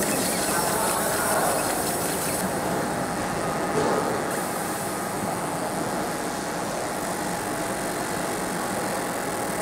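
Fiber laser marking machine engraving aluminum: a steady hiss, its highest part dropping away between about two and a half and four seconds in.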